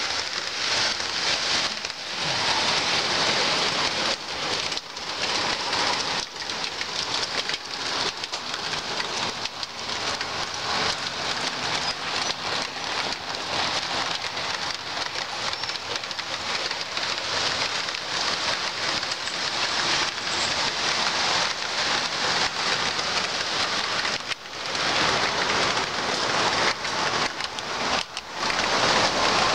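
O scale two-rail model trains running on the layout: metal wheels rolling on the rails make a continuous rushing clatter full of small clicks, with a faint low motor hum in the middle.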